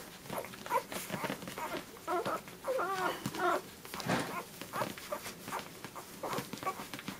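Week-old poodle puppies nursing: soft suckling and smacking clicks throughout, with a cluster of short high squeaks and whimpers about two to three and a half seconds in.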